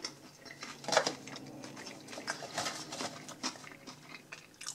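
Someone chewing a bite of breaded chicken nugget while picking up and turning over a cardboard food box. There is a sharp handling noise about a second in, then softer clicks and rustles.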